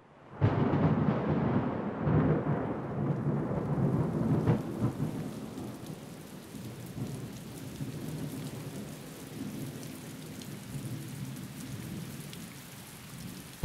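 A thunderclap breaking suddenly and rolling for several seconds, with a sharp crack partway through, then fading into steady rain. It is a recorded thunder-and-rain sound effect leading into a music track.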